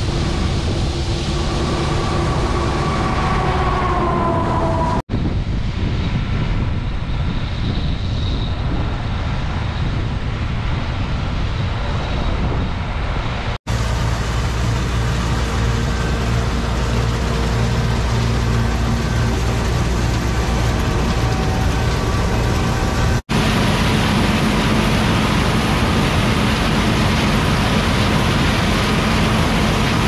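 Old John Deere combines running in the field, a steady machine drone of engine and threshing works, over several spliced clips. The sound breaks off briefly three times where one clip gives way to the next.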